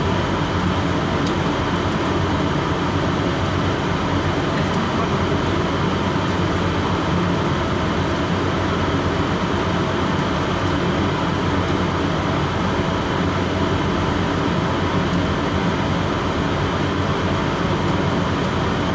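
A ship's engine machinery running with a steady low drone, heard out on the open deck.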